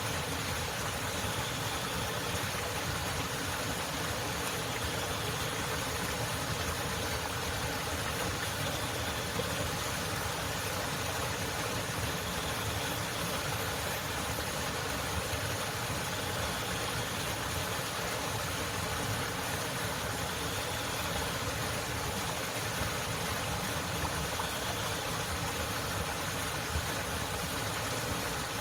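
Waterfall: a steady, unbroken rush of falling water at an even level.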